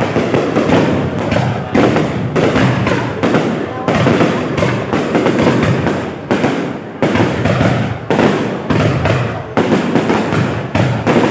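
Fireworks going off in quick succession: a string of booms and bangs, each one sudden and then fading, about one a second.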